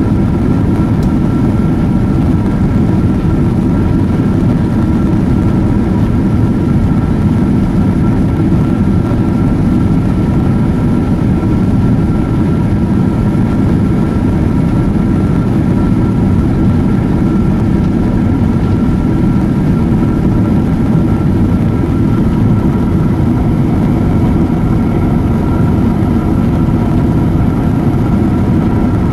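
Steady cabin noise inside a Boeing 777-200ER climbing out after takeoff, heard from a window seat behind the wing: a loud, even low rumble of airflow and its Rolls-Royce Trent engines, with two faint steady whining tones above it.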